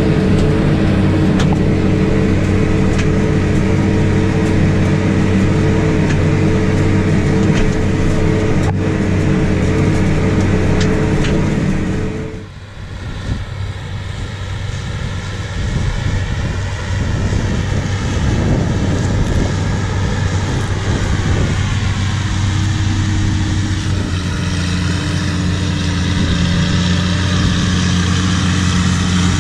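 Case Maxxum tractor's diesel engine running at a steady pull under load while drawing a disc harrow, an even engine drone. About twelve seconds in it drops to a more distant, rougher engine sound, and the close steady drone comes back near the end.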